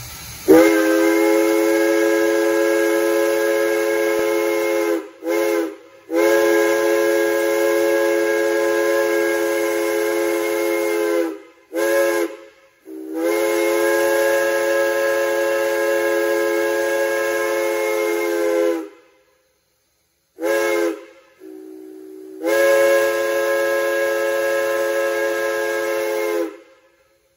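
Pennsylvania Railroad three-chime steam whistle blown on a steam locomotive, sounding a steady three-note chord. It gives several long blasts of about five seconds each, broken by short toots, and once a quieter, lower single note when only lightly opened.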